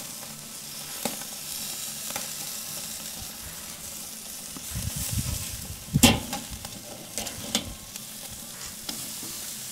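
Steaks sizzling on the hot grate of a charcoal Weber kettle grill, with a few sharp clicks of metal tongs against the grate as the steaks are flipped. The loudest clack comes about six seconds in.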